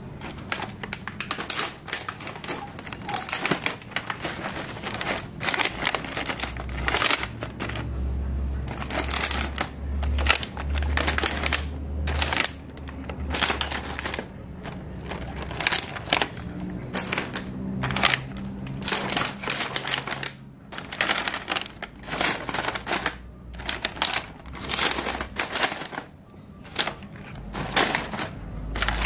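Clear plastic clamshell egg packs clicking, clattering and crinkling as they are handled and stacked into a plastic basket, in a dense irregular run of sharp clicks. A low hum comes and goes underneath.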